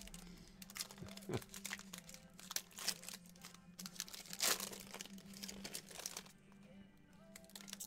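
The foil wrapper of a 2018 Panini Spectra football card pack crinkling as it is torn open and the cards are pulled out, in quick irregular crackles, loudest a little past the middle.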